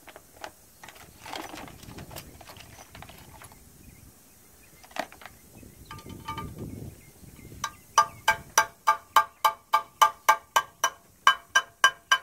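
Steel hammer tapping a pin into a new truck-trailer drum brake shoe: a quick, even run of about sixteen ringing metallic strikes, three or four a second, starting about two-thirds of the way in. Before it, light clinks and handling of small brake hardware.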